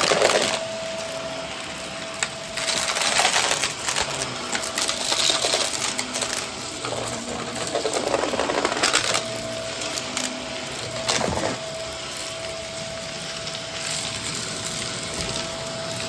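Close-miked ASMR trigger sounds: bursts of rustling or scratching and a sharp tap about eleven seconds in, from objects being handled near the microphone, over a faint steady hum.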